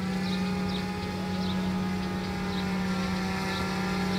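Large multirotor drone hovering, a steady propeller hum on one low pitch with many overtones. Faint short high chirps come and go over it.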